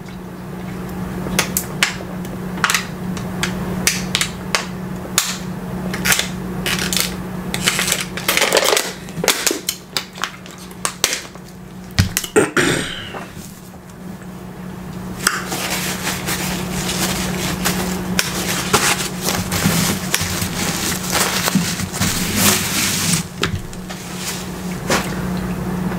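Scattered clicks, taps and rustling of hands handling food and packaging at a table, with a noisier stretch of rustling past the middle, over a steady low hum.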